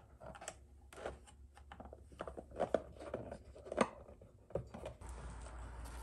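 Hands handling wires and a plastic fuse-and-relay power box on a workbench: irregular small clicks, taps and rustles of plastic and wire. Near the end a steady hiss comes in.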